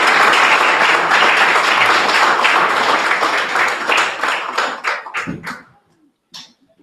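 Audience applauding: dense applause that thins into a few scattered claps about five seconds in and dies away, with a last clap or two near the end.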